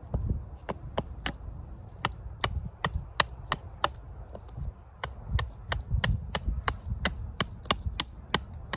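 A heavy D2 steel fixed-blade bushcraft knife chopping the end of a green stick to a point for a tent stake: a quick, uneven run of sharp blade-into-wood chops, about three a second.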